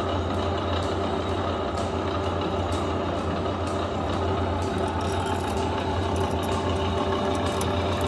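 Old camelback drill press running under power with a steady, even hum and a few faint ticks.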